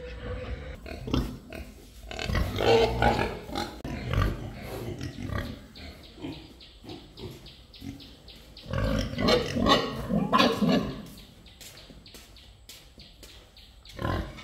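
Animal calls in two loud bouts, about two seconds in and about nine seconds in, with short quick knocks, about four a second, between and after them.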